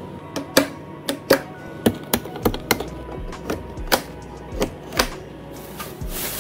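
Irregular sharp clicks and knocks of computer parts being handled and fitted, over background music, with a short hiss just before the end.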